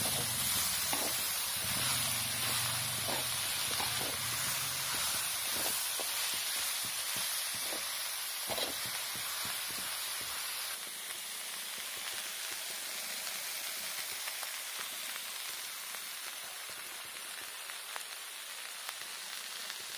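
Oncom and greens sizzling as they are stir-fried in a pan, with a steady hiss. A spatula knocks and scrapes against the pan several times in the first half.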